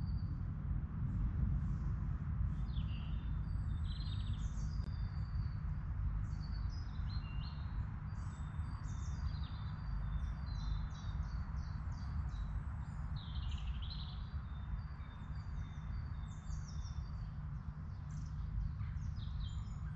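Woodland birdsong: several birds chirping and calling in short, overlapping phrases, over a steady low rumble.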